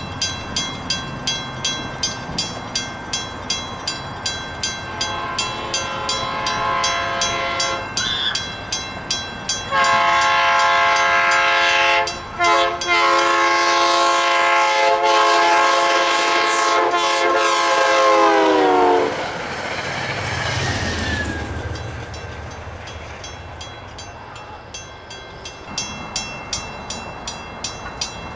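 Grade-crossing warning bell ringing in a steady quick rhythm while an approaching train sounds its horn in two blasts, the second long one dropping in pitch as the train passes. A low rumble of the train going over the crossing follows, with the bell ringing on.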